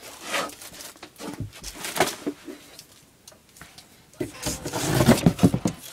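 Rummaging through a pile of boxed and wrapped fireworks: packaging rustling with scattered knocks and bumps, busiest and loudest in the last couple of seconds.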